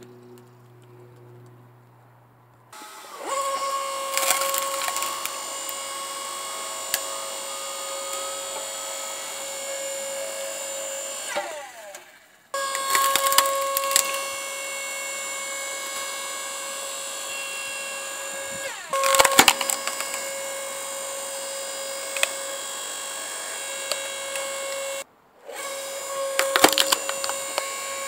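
Timco LS6T-52 electric hydraulic log splitter. Its motor and pump start with a steady whine about three seconds in and cut out briefly twice. Logs crack and splinter loudly about four times as the wedge forces them apart.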